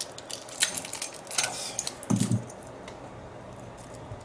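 Padlock keys jangling and clinking as they are worked off a small key clip, with a short low thud a little after two seconds; the jingling stops about two and a half seconds in.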